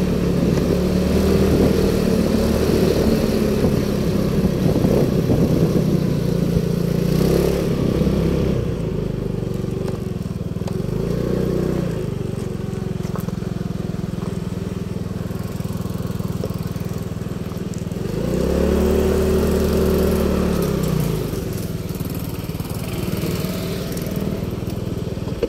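Motorcycle engine running at low speed, with wind and road noise over it for the first several seconds, then slowing. The engine note rises and falls briefly twice, about a third of the way in and again past the middle, before it settles.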